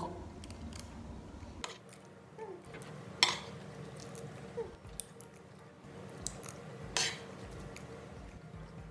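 Cutlery clinking and scraping against a plate during a meal: a few short clicks, the sharpest about three seconds in and another about seven seconds in.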